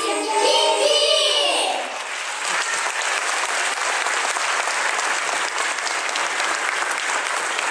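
The last sung notes of a song with backing music, falling away about two seconds in, followed by steady audience applause.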